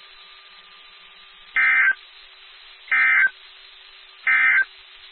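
Emergency Alert System end-of-message (EOM) code: three identical short bursts of digital data tones about 1.3 seconds apart, over a faint hiss and a low steady hum. The three bursts signal the end of the alert message.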